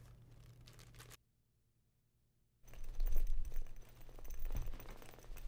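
Rustling and light handling noises. They break off for about a second and a half of dead silence, then come back louder, with scattered knocks and rustles.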